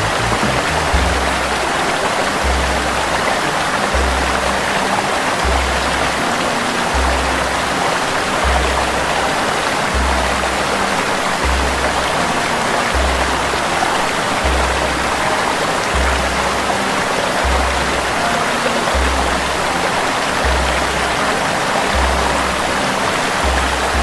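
Steady rush of water pouring and splashing down a small rocky cascade. Under it runs background music with a low bass pulse about every second and a half.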